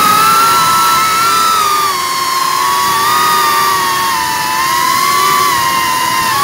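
FPV quadcopter's brushless motors and propellers whining as heard from the onboard camera, the pitch sliding up and down with the throttle.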